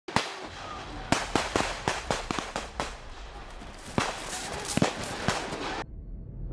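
Campfire of sticks and green bamboo crackling, with a steady hiss and many sharp, irregular pops. It cuts off suddenly near the end, leaving a low pulsing drone.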